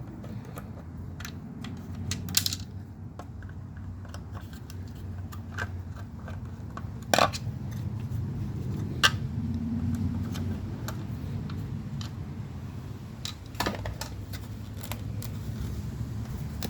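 Scattered sharp metal clicks and clinks as a screwdriver works the two screws holding the armrest pad and the loose metal parts are handled, a few louder knocks among them, over a steady low hum.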